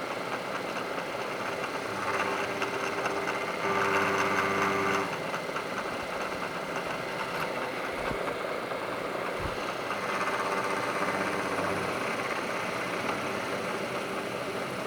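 Milling machine running with its cutter milling a metal workpiece, a steady machining noise with louder stretches of cutting about two to five seconds in and again around ten seconds.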